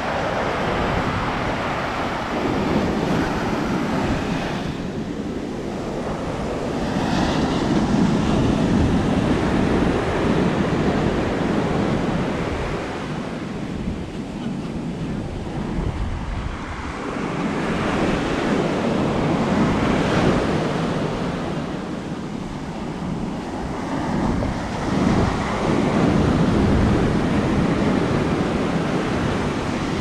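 Atlantic surf breaking and washing up the beach, the rush swelling and easing every several seconds, with wind buffeting the camera microphone as a low rumble underneath.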